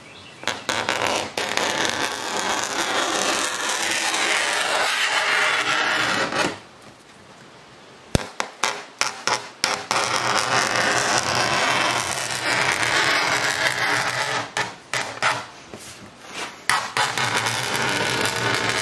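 Hooked plexiglass-cutting knife dragged repeatedly along a scored line in an acrylic sheet, scraping a groove deeper with each pass so the sheet can be snapped. Long scraping strokes alternate with runs of short, sharp strokes, with a pause of about two seconds near the middle.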